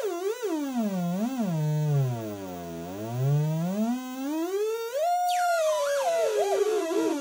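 RizeTronic dual-oscillator lo-fi synth playing one tone rich in overtones whose pitch swoops: two quick dips, a long slide down to a low drone about two and a half seconds in, a slow rise to a high note around five seconds, then a wobbling fall near the end.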